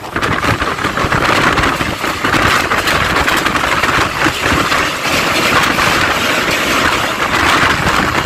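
Two express trains passing each other at speed, heard from the doorway of one: a loud, steady rush of wheels on rails as the other train's LHB coaches go by close alongside.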